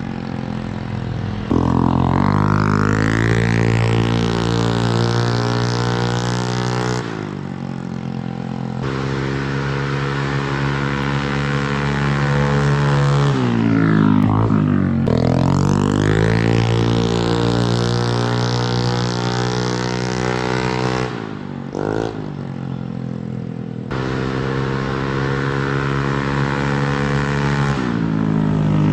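Motorcycle fitted with an aftermarket Samlong exhaust on a stock engine, idling and being revved several times, the pitch climbing and dropping back. The sound changes abruptly a few times, as between separate clips.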